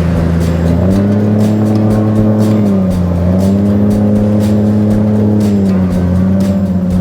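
Solar 470 Super Jet jet boat's outboard engine running under way. Its pitch rises about a second in, dips briefly near three seconds and eases back near six seconds, with repeated short knocks throughout.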